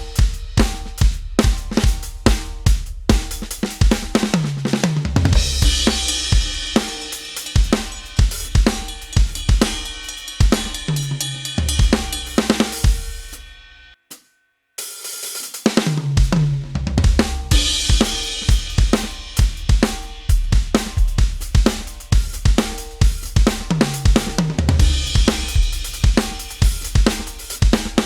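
Addictive Drums 2 sampled drum kit ('Heavy Dude'), played from an electronic drum kit. Quick bass drum strokes, snare, hi-hat and crashing cymbals, with several fills down the toms. The playing stops for about a second midway, then carries on.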